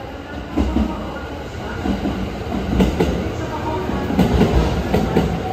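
Sunrise Express sleeper train, a 285-series electric train, pulling slowly into the platform. Its wheels rumble and clack over the track, growing louder as the cars pass close by.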